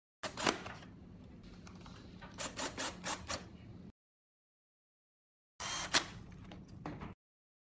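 A 10.8 V cordless drill/driver driving screws into the plastic frame and fan-motor cover of a wall-type air-conditioner indoor unit: a steady motor hum with scraping, and a quick run of sharp clicks in the middle. It comes in two spells, the second shorter.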